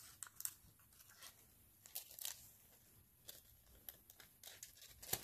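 Faint crinkling and small crackles of a thin strip of holographic nail foil being handled and held up, in scattered clicks with the sharpest near the end.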